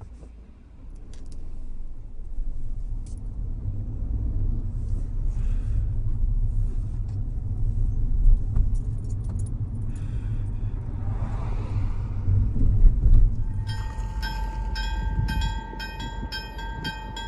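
Car driving, heard from inside the cabin: a steady low road and engine rumble. About fourteen seconds in it gives way to a railway level crossing's warning bell ringing in rapid strikes, about four a second, over a steady tone, signalling an approaching train.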